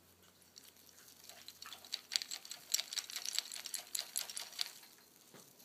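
Male eclectus parrot wrestling a rope chew toy held in a hand: a quick run of clicking and rattling as it bites and shakes the toy, building up and busiest through the middle, then dying away near the end.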